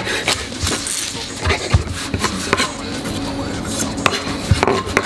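Chef's knife chopping fresh parsley on a wooden cutting board: irregular knocks of the blade against the board, several strokes in quick runs.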